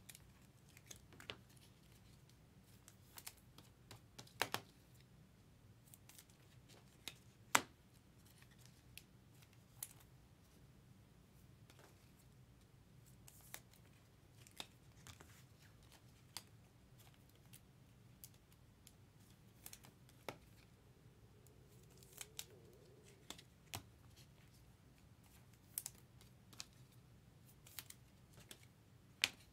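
Topps Chrome baseball cards being flipped through by hand: faint, irregular clicks and slides of glossy card against card, with a few sharper snaps.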